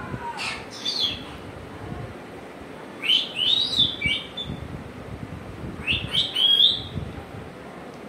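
African grey parrot whistling: short calls that sweep up in pitch, in two bursts, about three seconds in and about six seconds in, the second ending on a briefly held note.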